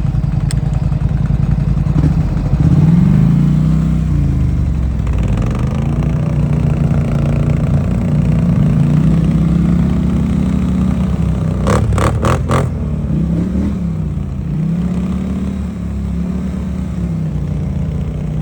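800 cc ATV engine running while riding, its pitch rising and falling again and again as the throttle is opened and eased off. A quick run of four sharp clicks about twelve seconds in.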